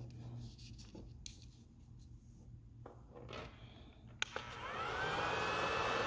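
Light handling rustles and a couple of clicks. About four and a half seconds in, a heat gun switches on: its fan whine rises and settles into a steady blowing hiss.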